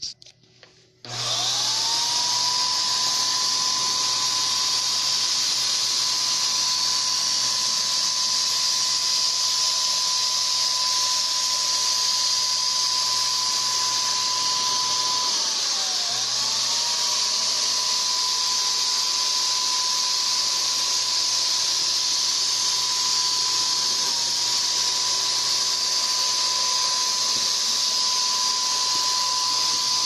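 Handheld electric HVLP paint sprayer switching on about a second in and running steadily while spraying floor paint: a high motor whine over a loud rush of air. About halfway through the whine sags in pitch for a moment and recovers.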